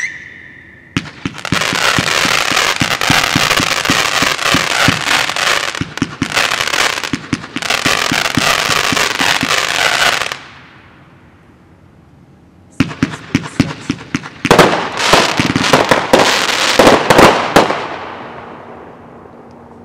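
Black Cat Wild Weasel consumer firework crackling: a dense run of rapid crackles and pops from about a second in to about ten seconds, a pause of two or three seconds, then a second run of crackling that fades out near the end.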